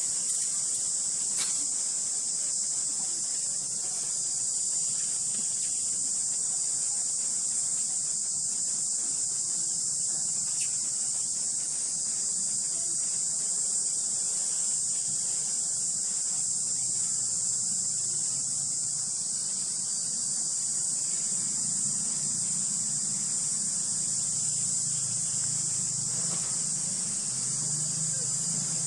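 Steady high-pitched drone of an insect chorus. A faint low hum joins in during the second half.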